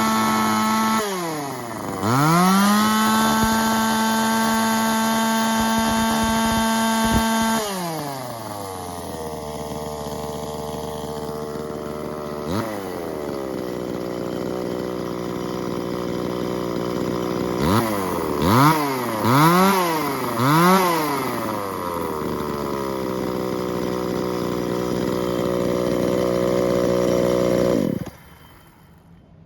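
Tanaka ECS-3309 two-stroke chainsaw engine revved high and held, easing off once and revving back up, then dropping to idle about eight seconds in. It idles, is blipped three times in quick succession, and cuts off suddenly about a second before the end.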